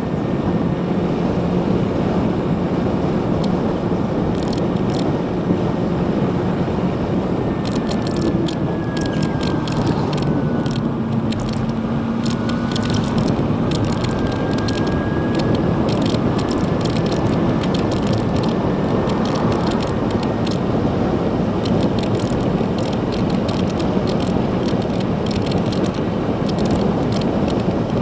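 Ride on a 2016 Zero DSR electric motorcycle: steady wind and tyre noise, with a faint thin motor whine that falls as the bike slows about a third of the way in and then rises again as it picks up speed. Scattered light ticks and rattles sound through the second half.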